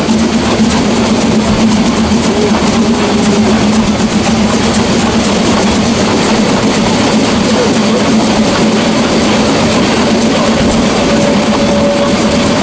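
Narrow-gauge steam train running, heard from a coach of the same train: a loud, steady rumble of wheels on the rails, with a constant low hum and faint repeated clicks.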